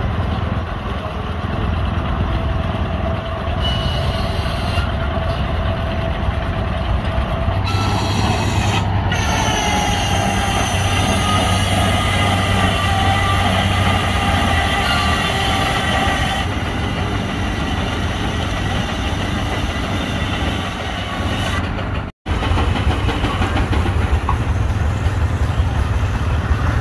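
Old belt-driven circular sawmill running with a steady mechanical din, powered over a long flat belt by a Case steam traction engine. About eight seconds in, the blade takes a cut and sings a high whine that drops in pitch and then holds, easing off at about sixteen seconds. The sound cuts out for an instant about 22 seconds in.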